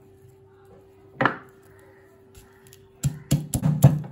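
Peeled garlic cloves dropped into a stone mortar with one brief clack about a second in, then a stone pestle pounding the garlic against the stone in quick heavy strikes, about five a second, from about three seconds in.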